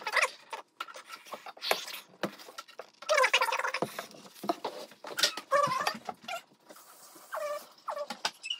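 High-pitched laughter and strained squeals from people as a stuck plastic juice-bottle cap is wrestled with, in short broken outbursts. Scattered knocks and clicks come from the bottle being gripped and handled.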